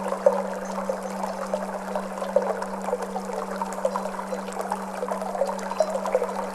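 Trickling, flowing water over a low, steady Tibetan singing bowl tone that wavers slightly.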